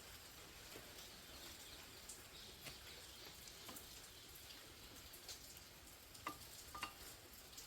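Faint, steady patter of heavy rain, with a few faint small clicks scattered through it.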